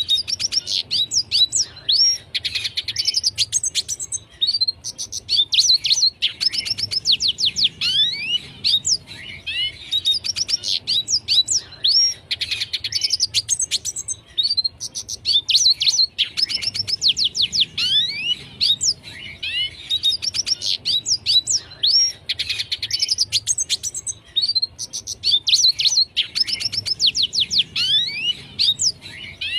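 Red siskin singing vigorously and without pause: fast twittering phrases of quick rising and falling chirps and trills, one phrase after another with only brief gaps.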